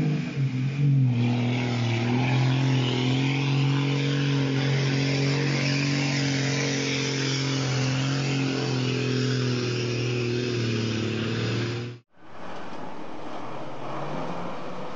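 Cargo truck's engine running steadily under load as it drives through rushing floodwater, with water splashing and rushing around it. About twelve seconds in it cuts off abruptly, giving way to the rush of a river with a fainter truck engine.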